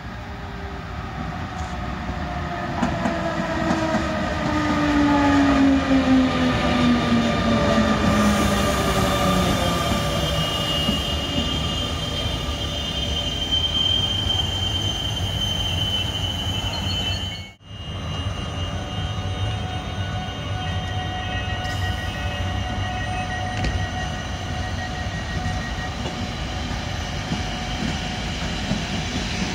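EU160 (Newag Griffin) electric locomotive hauling Intercity coaches past at speed. Its motor whine falls in pitch as it goes by, then the coaches' wheels keep up a steady rumble and clatter, with a thin high squeal in the middle of the pass.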